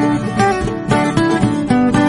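Background music: acoustic guitar picking a quick run of plucked notes.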